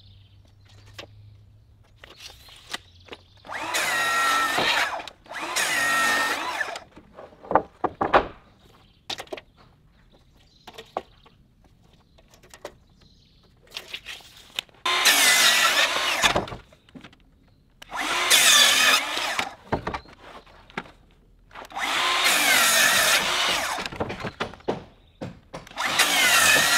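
Festool track saw crosscutting framing lumber: six separate cuts of one to two seconds each, the motor spinning up, running through the board and winding down. Short knocks and clicks of boards being handled come between the cuts.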